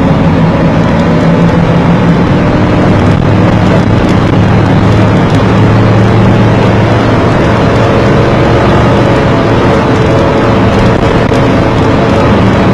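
Vehicle engine running steadily under road and wind noise while driving, its pitch shifting slightly a few times as the speed changes.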